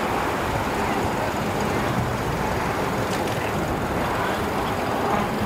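Steady rumble of a road vehicle running, with no single event standing out.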